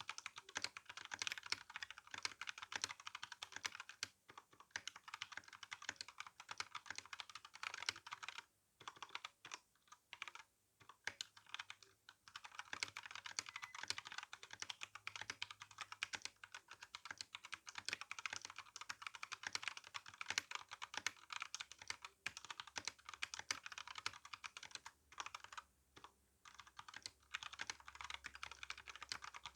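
Typing on a Royal Kludge RK61 mechanical keyboard with tactile brown switches and GSA keycaps: fast, continuous keystroke clacks, broken by a few short pauses.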